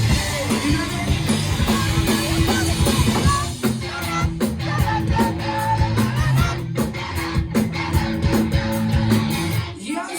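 Live pop-rock band playing a song: electric guitar, bass and drum kit with a voice singing over a steady beat. Near the end the bass and drums drop out.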